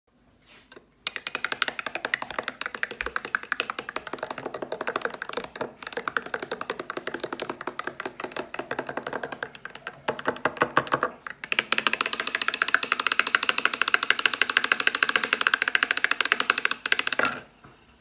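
A long metal spoon stirring in a tall glass mug of cappuccino, a rapid run of clinks against the glass with a ringing tone. It stops briefly twice before halting near the end.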